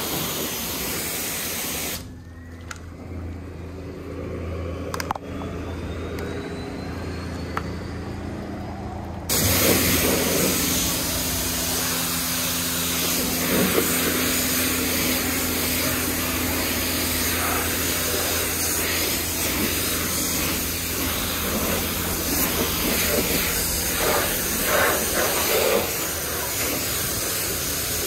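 Self-serve car wash high-pressure spray wand hissing as its jet hits a car's body and wheels, with a steady low hum underneath. About two seconds in the spray hiss drops away, and it comes back louder some seven seconds later.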